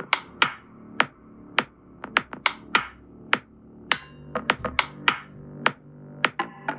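Electronic music played through a Samsung Galaxy S23's loudspeaker: sharp, crisp percussive hits a few times a second over sustained synth tones.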